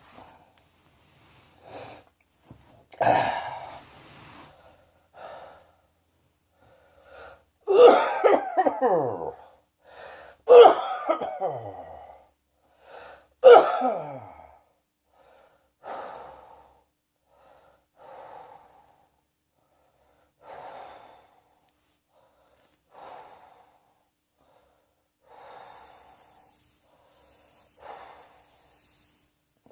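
A person coughing in four loud fits during the first half, some tailing off with a falling voice. After that come quieter wheezy breaths every two to three seconds.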